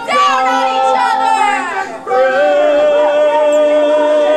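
Singing with music: voices holding long notes in harmony, moving to a new sustained chord about two seconds in.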